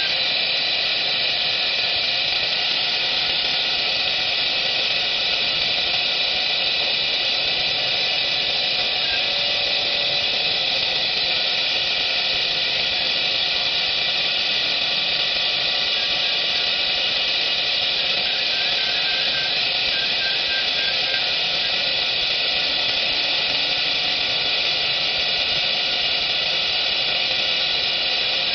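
High-speed spindle of a PCB depaneling machine whining steadily and high-pitched as its milling cutter routes through a printed circuit board panel, separating it into boards.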